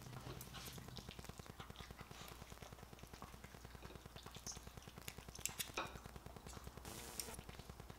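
Small dog eating chicken-breast sausage pieces from a plate: faint chewing and smacking with scattered clicks of teeth and food against the plate, a few sharper clicks a little past halfway.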